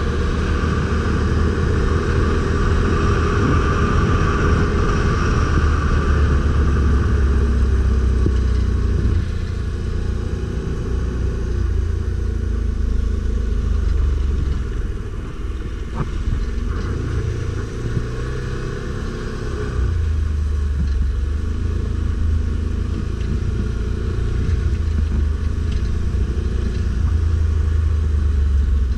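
ATV engine running under way, a steady low rumble that eases off for a stretch in the middle and then picks up again.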